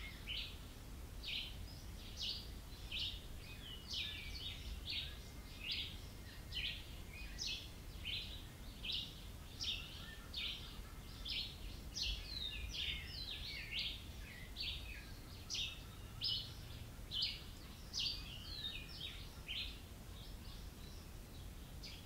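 Birds chirping in a steady chorus of short, high notes, several a second, some sweeping downward, over a low rumble.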